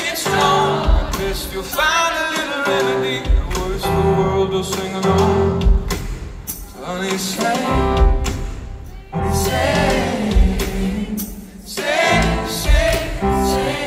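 Live band music with a male lead singer singing into a microphone, his voice rising and falling over the band.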